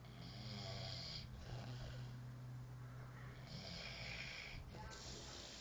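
A man snoring in his sleep: three noisy, hissing snoring breaths, the first near the start and two close together a little over three seconds in.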